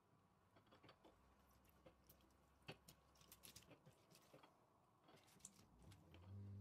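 Near silence with faint, scattered small clicks and taps. A steady low hum starts near the end.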